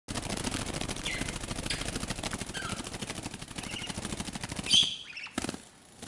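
A 29-day-old budgerigar chick flapping its wings rapidly in place, a fast even flutter of wingbeats, with a few high chirps over it. The flapping stops about five seconds in, just after a louder chirp.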